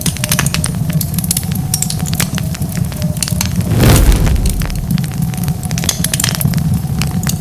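Wood fire crackling, with many sharp pops over a steady low rumble of the flames. About four seconds in comes a louder rush of sound lasting about half a second.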